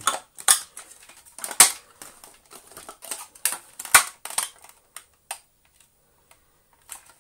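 Hard plastic clicks and knocks from the Gtech AirRam's housing parts being handled and worked apart: several sharp taps over the first five seconds, then nearly quiet.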